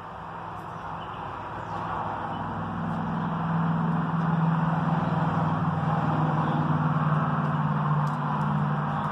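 An engine running at a steady pitch. It grows louder over the first few seconds, holds, and eases off a little near the end.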